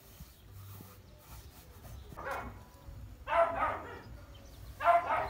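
A dog barking, three barks a little over a second apart, the last two louder.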